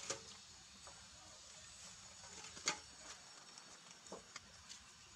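Puppies suckling at their mother dog: scattered soft, wet smacking clicks, one sharper click about two and a half seconds in, over a faint steady high hiss.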